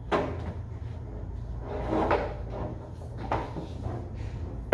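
A few separate knocks and clunks, the loudest near the end, as a corded drill with a long bit and its cord are handled; the drill is not running.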